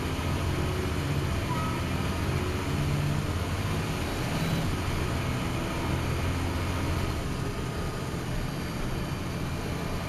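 Dennis Trident double-decker bus under way, heard from inside the saloon: a steady drone of the diesel engine and transmission mixed with road and body noise.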